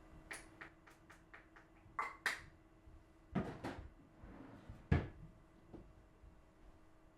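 Household handling sounds in a small room: a run of light clicks, then two sharper knocks, then a few heavier thumps, the loudest about five seconds in, like a cupboard door or things being set down. A faint steady hum underneath.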